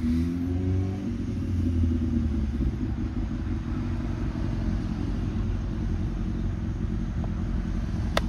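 Road traffic rumbling past, with a car's engine tone in the first couple of seconds. A single sharp click sounds near the end.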